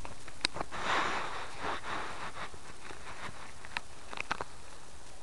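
Handling noise from a small handheld camera: scattered sharp clicks, with a brief rustling hiss about a second in.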